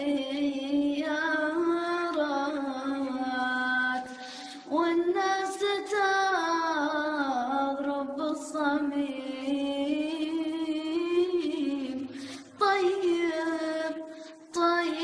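A solo voice sings an Arabic song, seemingly unaccompanied, in long held notes with a wavering vibrato. It breaks off briefly about four seconds in, again about twelve seconds in, and shortly before the end.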